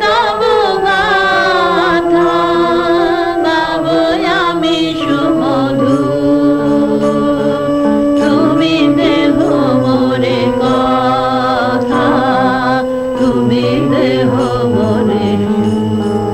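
Bengali devotional kirtan: singing with a wavering vibrato over a steady sustained drone.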